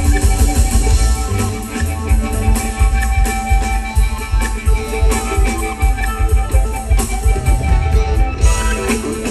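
Live band playing an instrumental passage: electric guitar leading over drum kit and bass, with a steady beat.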